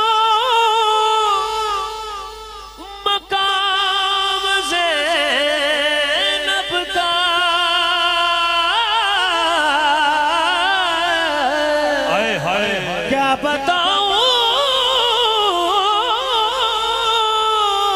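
Wordless naat-style singing: long, ornamented held notes with wide vibrato that slide between pitches. There is a short break about three seconds in.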